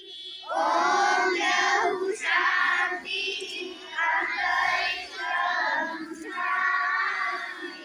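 Singing voices in a slow melody, in separate phrases of about a second each with short breaks between, over a steady low hum.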